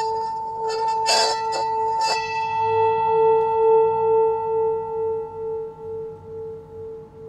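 Brass singing bowl ringing in a steady, wavering hum. A few sharp knocks of its wooden mallet on the bowl come in the first two seconds. The tone then swells about three seconds in and slowly fades, pulsing a couple of times a second.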